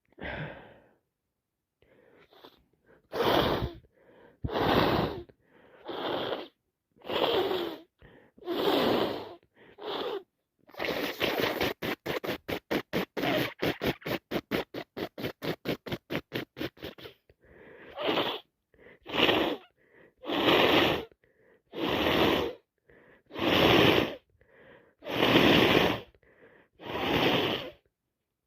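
A person with a heavy cold sniffing hard through a blocked nose, one sniff about every second and a half. In the middle comes a fast run of short, quick sniffs lasting several seconds.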